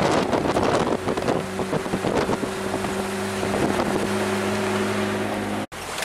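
Pickup truck engine running steadily under way on a dirt road, with gravel and road rumble and wind buffeting the microphone through the open window. The sound drops out abruptly for a moment near the end.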